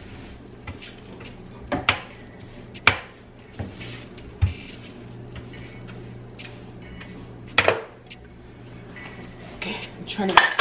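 Hand scrub brush scraping and knocking against the floor and sides of a wooden sink cabinet, with about half a dozen sharp knocks, over a steady low hum that stops near the end.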